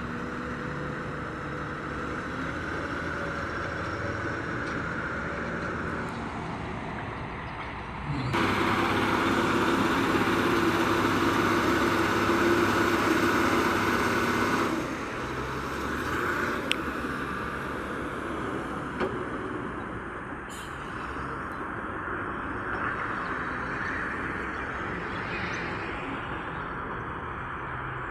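Engine of heavy earth-moving machinery running steadily, then working harder and louder for about six seconds in the middle before settling back.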